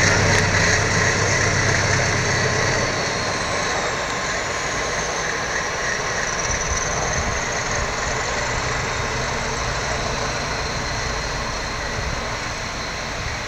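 A passenger train hauled by an SM42 diesel locomotive pulls away: the locomotive's diesel engine and the rolling coaches run steadily and grow gradually fainter as the train moves off.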